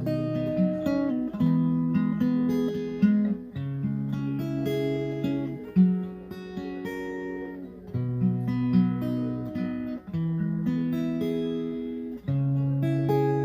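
Background music: acoustic guitar strumming and picking chords that change about every two seconds.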